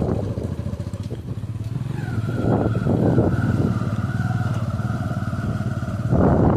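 An engine running steadily, joined about two seconds in by a steady high-pitched whine that lasts until near the end.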